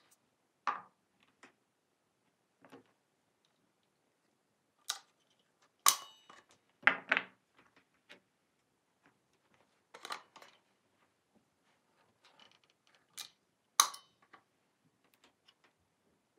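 Chunks of walnut wood being set down and shifted by hand on the board inside a mould: scattered wooden knocks and clatters with quiet gaps between them, the loudest a double knock near the middle and a sharp one near the end.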